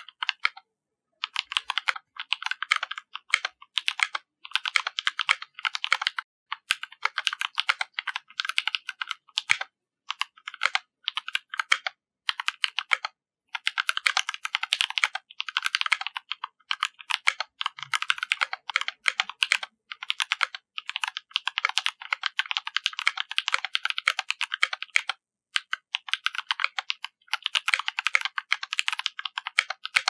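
Fast typing on a 65% Canoe Gen 2 custom mechanical keyboard fitted with EVA Frankenswitches and GMK First Love keycaps. Dense runs of keystrokes come in spurts, with a few short pauses.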